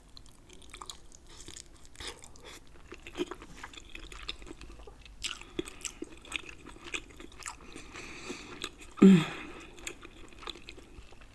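Chewing of Alfredo-coated lobster meat, with many small mouth clicks. About nine seconds in comes a short vocal sound from the eater that falls in pitch, the loudest moment.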